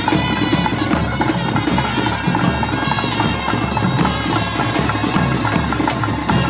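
Loud traditional ritual music: a reed wind instrument playing a continuous melody over steady drumming.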